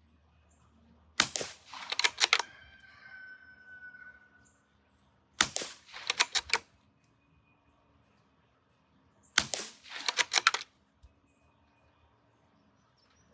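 Three shots from a suppressed .22 rifle firing subsonic ammunition, about four seconds apart. Each is a short pop followed by a quick run of clicks.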